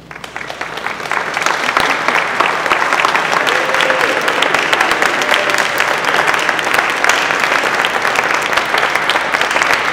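Audience applauding: the clapping starts at once and swells over the first second or so into steady, dense applause.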